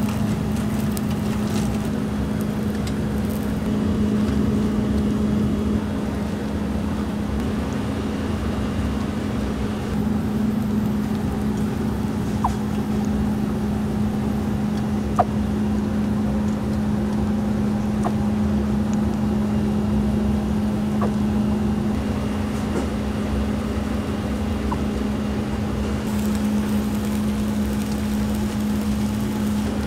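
Steady hum of kitchen machinery: one constant low drone under an even rushing noise, with a few faint light ticks, one sharper about halfway through.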